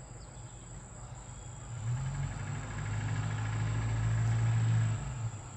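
Steady high-pitched insect trilling, with a low motor hum that starts about two seconds in, swells for about three seconds and then cuts off.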